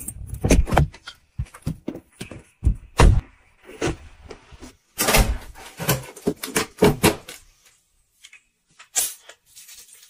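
Irregular clicks, knocks and clatters from handling food and utensils, including metal tongs against a plate. The sounds come in quick clusters, then pause near the end before one last knock and a faint scrape.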